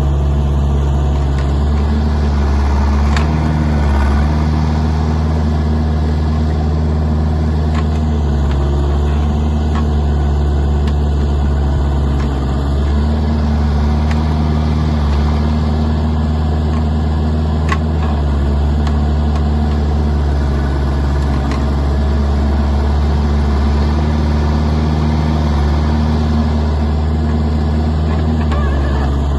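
Kubota mini excavator's diesel engine running steadily at working speed, with slight dips in speed and a few faint sharp knocks.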